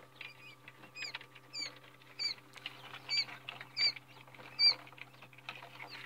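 Newly hatched quail chicks peeping: short, high chirps repeating about once every 0.7 seconds, over light rustling and a steady low hum.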